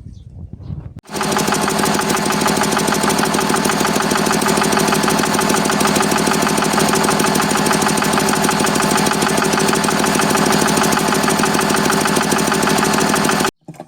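Zubr 8 hp engine running steadily with a metallic knock that appeared on starting it after an overhaul with a new cylinder liner, piston and crankshaft; the owner does not know its cause. It comes in about a second in and cuts off abruptly near the end.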